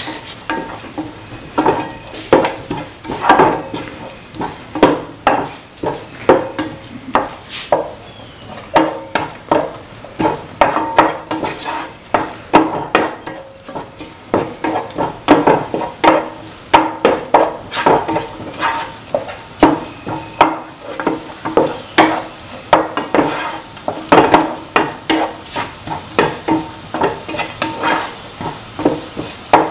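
A spatula stirring and scraping shallots, onion and ground spice paste around a pan of frying oil, with a sizzle underneath. The scrapes are irregular, about one or two a second.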